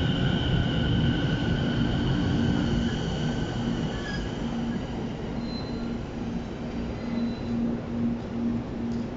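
A 15-car Sobu Rapid Line electric train pulling into the platform and braking, with a steady high brake and wheel squeal and a rumble that fade as it slows. From about a second in, a low tone pulses about twice a second.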